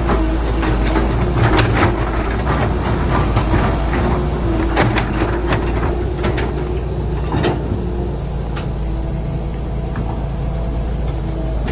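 Excavator engine running with a steady low rumble and hum, with a run of sharp metallic clanks and knocks that thin out after about eight seconds.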